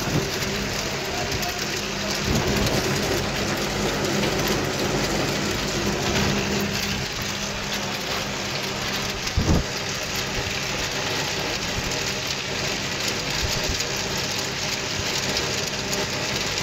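Anchovy peeling machine running: steady hum from its electric motor and gear reducer under a dense, even patter of dried anchovies pouring off the splitting slots and chute onto a pile. A single sharp knock comes about nine and a half seconds in.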